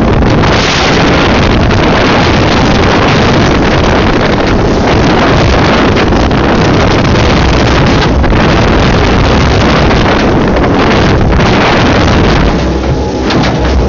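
Loud wind buffeting the microphone over an outboard motor driving a small aluminium pontoon boat at speed through choppy water.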